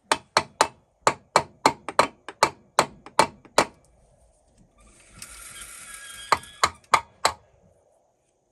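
A quick series of about a dozen sharp taps, like a hammer striking metal, about three or four a second, then a steady whirring hiss with four more taps in it.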